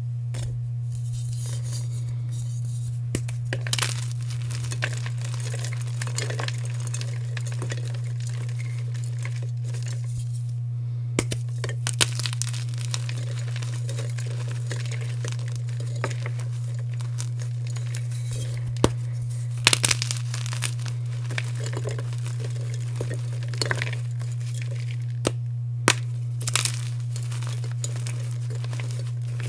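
Blocks of gym chalk being crushed and crumbled by hand: crisp crunching and crackling in irregular bursts over a steady low hum.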